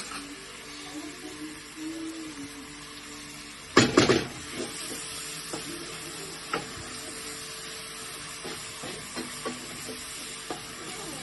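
Onions, beef and garlic-ginger paste sizzling in hot oil in a cooking pot as it is stirred to keep it from sticking to the bottom. About four seconds in the spoon clatters loudly against the pot, followed by occasional light clicks and scrapes.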